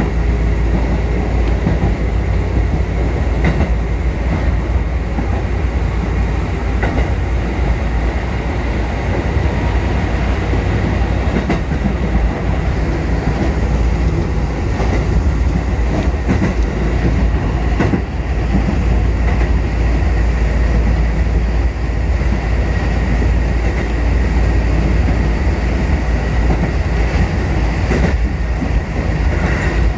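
Kotoden Kotohira Line electric train heard from inside the front car as it runs along the track. There is a steady heavy rumble of wheels on rail and running gear, with a few faint clicks.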